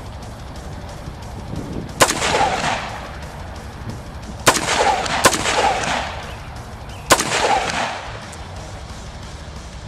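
Four single rifle shots at uneven intervals, two of them less than a second apart, each followed by a brief echo dying away.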